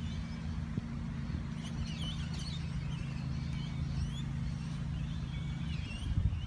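A steady, low engine hum drones on and stops about six seconds in. Birds chirp over it in short, whistled calls several times. Wind buffets the microphone near the end.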